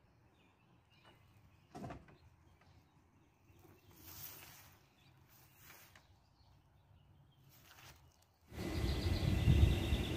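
Quiet outdoor background with a few faint bird chirps, then about eight and a half seconds in a sudden loud rushing noise with a heavy low rumble.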